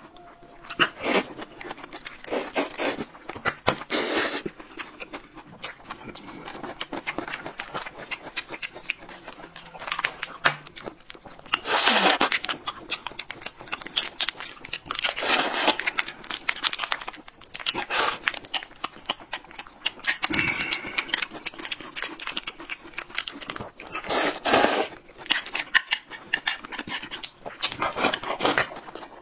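Close-miked eating sounds: loud slurps of noodles in bursts every few seconds, chewing, and the crinkle of plastic snack packets being torn open.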